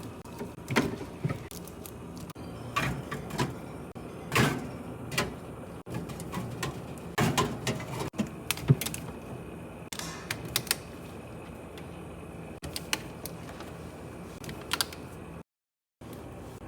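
Drinks being stocked into a mini fridge: irregular knocks, clinks and clatter as containers are set down and shuffled against each other and the shelves.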